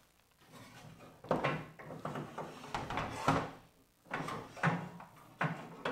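Tree-stand cables and plastic-wrapped parts being handled and pulled out of the box: rustling with several irregular knocks and clatters, the loudest a little past halfway.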